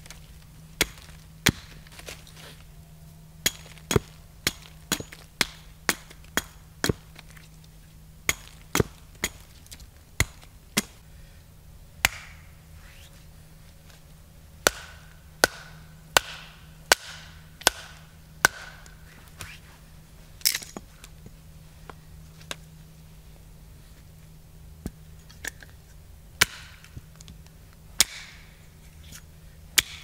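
Hatchet chopping into a short log on a stump to split it: dozens of sharp wooden knocks at uneven intervals, some with a brief ring.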